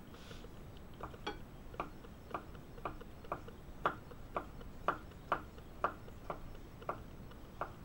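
Condor Nessmuk carbon-steel knife chopping small pickled gherkins on a wooden cutting board: a steady run of short knocks, about two a second, starting about a second in.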